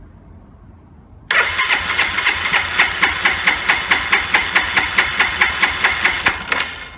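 Electric starter of a Suzuki Grasstracker BigBoy's single-cylinder engine cranking it for about five seconds without firing, a starter whine with even compression pulses about four times a second, starting suddenly about a second in. The spark plug is out and a compression gauge is fitted in its hole for a compression test.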